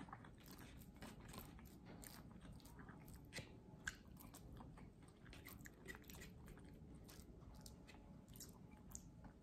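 Faint, close-up chewing and biting: a scatter of small wet mouth clicks and ticks from eating.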